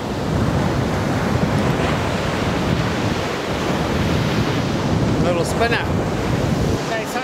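Surf breaking and washing up a beach, with wind buffeting the microphone: a loud, steady rush. A brief pitched sound cuts through about five seconds in.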